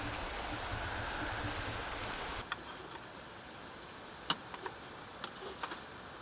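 Steady outdoor hiss with a low rumble that cuts off about two and a half seconds in, leaving a quieter hiss with a few light clicks and taps.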